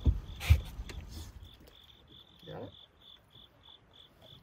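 A boat motor's low rumble, with two knocks, dies away about a second in as it is switched off with the key. Crickets then chirp steadily, about three chirps a second.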